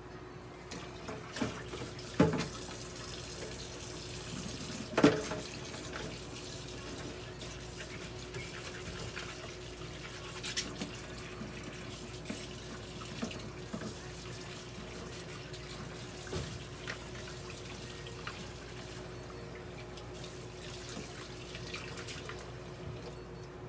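Water running steadily, with a few sharp knocks and clatters, the loudest about two and five seconds in, over a faint steady hum.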